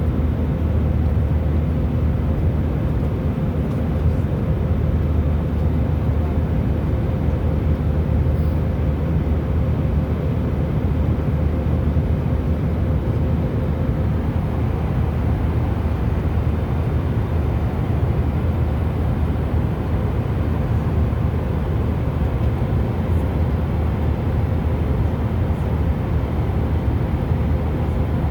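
Steady low drone of an airliner cabin in flight, with a faint constant hum above it.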